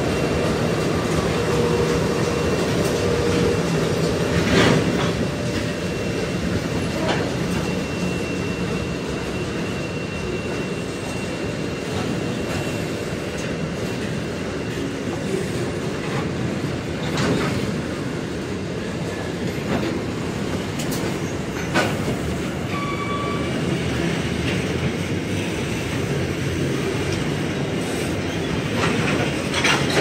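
Diesel-hauled freight train passing close by: locomotive engine hum in the first seconds, then a long string of empty flat wagons rolling past, wheels clacking over rail joints at irregular intervals, with a few brief thin squeals from the wheels.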